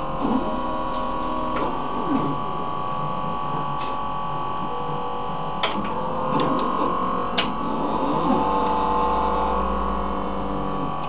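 Leica CV5000 automated coverslipper running: a steady machine hum with several held tones, over which its motors whir up and down in pitch and sharp clicks sound as the robotic gripper and the stepper conveyor move the slides.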